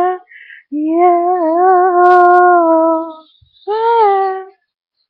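A female voice singing unaccompanied, holding a long wavering "yeah" for about two and a half seconds, then a shorter "yeah" near the end.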